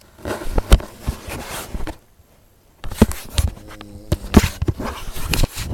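A person snoring: two long rasping breaths with a rattling flutter in them, the second carrying a low droning hum.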